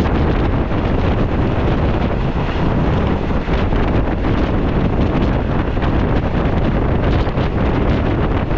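Loud, steady rush of wind buffeting the microphone out of a moving train's window, over the low rumble of the train running along the track.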